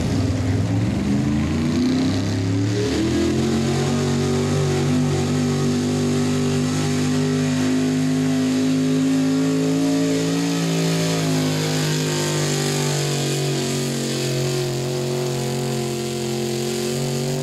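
Modified gas pulling truck's engine at full throttle under load, dragging a weight-transfer sled. Its pitch climbs over the first three seconds, then holds high and steady through the rest of the pull.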